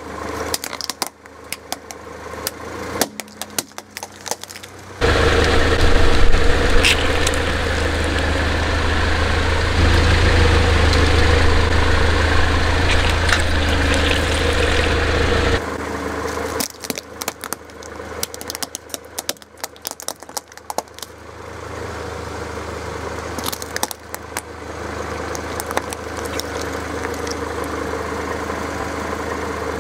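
Car engine running at low speed while a tyre rolls over plastic toy trucks and bags of slime, the plastic cracking and crunching in many sharp snaps. About five seconds in a louder, deeper engine sound comes in for some ten seconds, then drops back.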